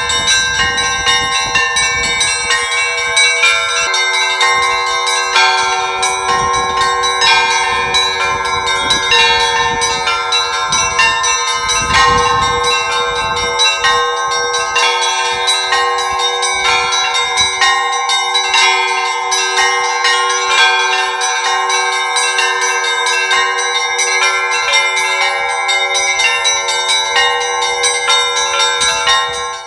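Orthodox church bells being rung on a belfry: small bells struck in quick, dense patterns over the longer ringing of larger bells. A deeper bell joins about four seconds in and keeps sounding, and the ringing cuts off at the very end.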